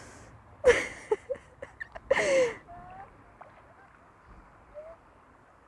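Short exclamations and gasps from women wading barefoot through cold river water, the loudest about two seconds in. A faint steady hiss of flowing water runs underneath.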